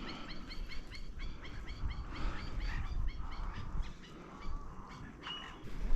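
Wild birds calling in a wetland: one bird repeats a fast series of short, high, hooked notes, about six a second, for the first half, then scattered chirps and a brief whistle follow.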